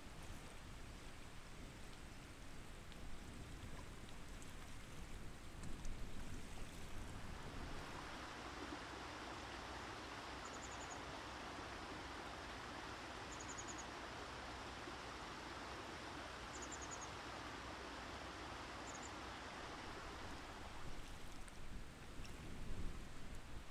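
Steady rush of running water that swells fuller and brighter after a few seconds and eases near the end. Four faint, brief high bird chirps come in the middle.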